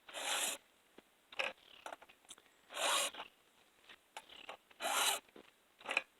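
Oregon round file drawn through the steel cutters of a chainsaw chain in a file guide, one rasping stroke per cutter: three strokes about two and a half seconds apart, with a shorter scrape and light clicks between them.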